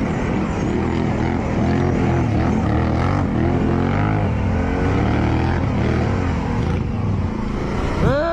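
Off-road vehicle engine revving up and down repeatedly under load, with a sharp knock just before the end.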